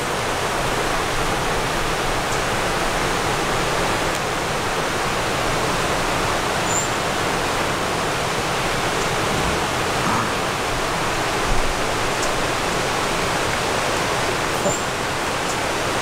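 Steady rushing of running water, an even hiss with no change. Brief high chirps sound three times over it.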